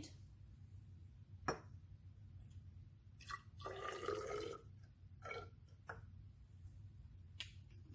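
Hydrochloric acid poured from a glass bottle into a glass measuring cylinder: a short, faint trickle of liquid about four seconds in, with a few light clinks and taps of glassware around it.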